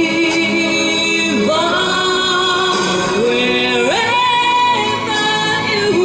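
A woman singing a ballad into a handheld microphone, amplified, over musical accompaniment: long held notes, the melody climbing in steps near the middle.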